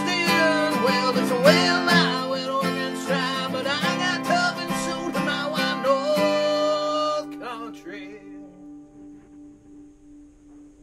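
Background song with acoustic guitar and a singing voice, ending about seven seconds in on a final chord that rings out and fades away.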